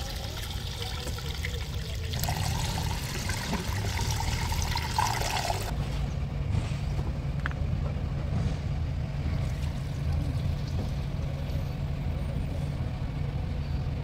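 Oil pouring from a metal drum through a plastic funnel into a JCB backhoe loader's filler, a steady trickling splash. About six seconds in it gives way to a steady low engine hum.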